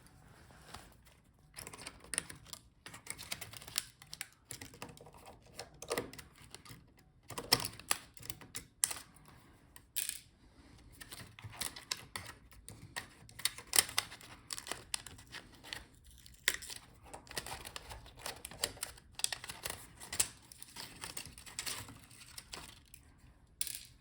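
Irregular small clicks, taps and plastic rattles from hand work on a laptop's plastic palmrest while its touchpad is being taken out.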